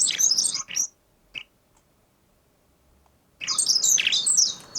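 Birdsong from a field recording, several birds calling over each other with high chirps, a common chiffchaff among them. The song breaks off to near silence about a second in and starts again about three and a half seconds in.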